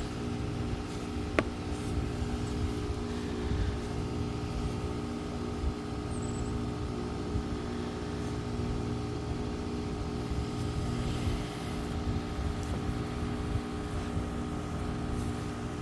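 2013 Carrier Comfort heat pump outdoor unit running steadily in heat mode: the even hum of its compressor and fan. A single light click comes about a second and a half in.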